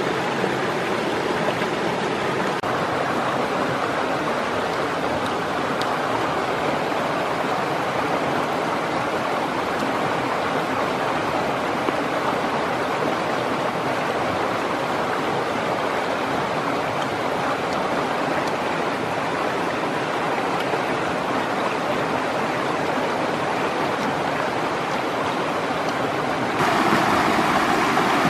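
Water rushing over rocks in a shallow stream, a steady noise, louder and brighter near the end.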